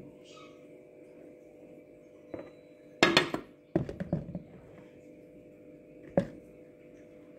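Knocks and clinks of a plastic mixing bowl and glass containers being handled and set down as hair-mask ingredients are combined. There is one knock about two seconds in, a quick cluster of clatters from about three to four and a half seconds, and one sharp knock about six seconds in, over a faint steady hum.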